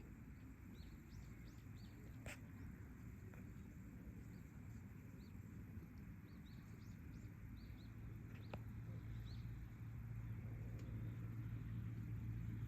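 Small birds chirping in short calls, scattered throughout, over a low outdoor rumble; a steady low hum comes in and grows louder over the last few seconds.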